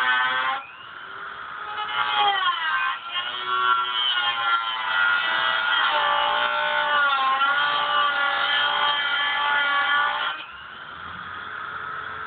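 Handheld rotary tool grinding through the steel fender sheet metal, cutting the opening for a side marker light. Its high whine wavers in pitch as the cut loads the motor, dropping back briefly about half a second in and again near the end.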